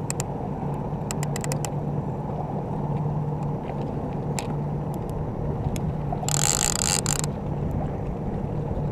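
A levelwind trolling reel being cranked to bring in a hooked trout, its gears and clicker ticking, over the steady hum of the boat's motor. A brief hiss comes about six seconds in.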